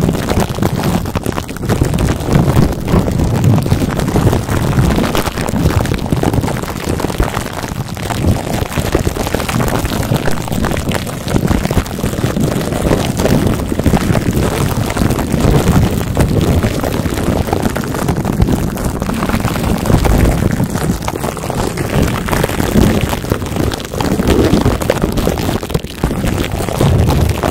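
Hands rubbing and crinkling plastic wrap over a microphone's grille, right against the mic: a loud, continuous crackle full of fine clicks, with a deep rumble from the handling.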